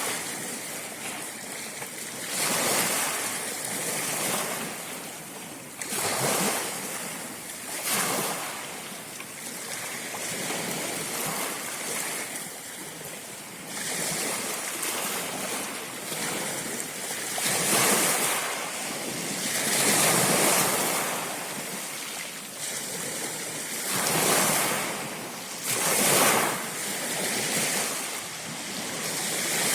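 Rushing water, a steady noise that swells and eases every few seconds, with wind buffeting the microphone.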